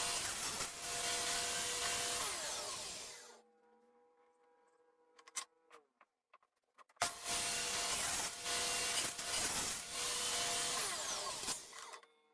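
Table saw cutting wood twice: a loud cut of about three seconds, a quiet pause, then a longer cut of about five seconds, each with a steady whine that drops in pitch as the cut ends.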